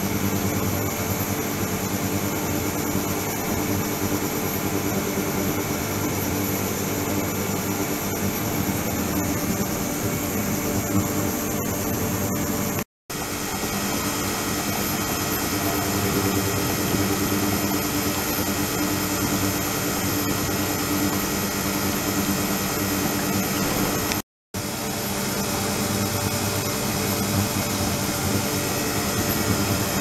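Flowing-water ultrasonic cleaning tank running, a steady hiss and hum with many steady tones from the ultrasonic transducers and the circulating water. The sound cuts out briefly twice.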